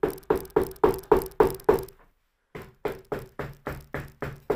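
A mallet tapping rapidly on horn wrap wound around a western saddle horn, about three to four blows a second, to lay the wraps tight and smooth. The tapping stops for about half a second just before the middle, then picks up again more softly.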